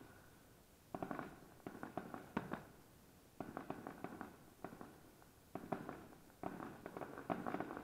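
Aerial fireworks shells bursting: quick runs of sharp bangs every second or so, thickening into a denser volley near the end.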